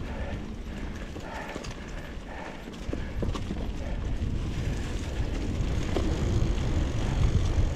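Mountain bike riding over a rough off-road trail: irregular knocks and rattles from the bike over the bumps above a steady low rumble that grows louder about three seconds in.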